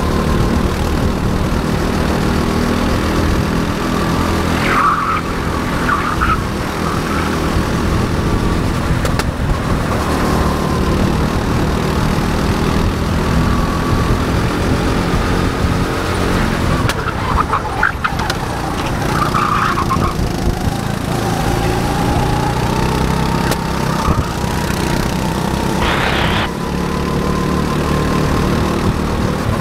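Go-kart engine running hard through a lap, its pitch rising and falling with the throttle, with a thin whine drifting up and down. A few short high squeals cut in several times.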